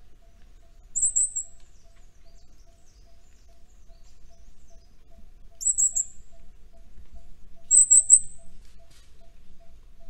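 Vernal hanging parrot giving short, high-pitched "zi-zi-zi" calls: three brief runs of two or three quick notes, about a second in and twice more later.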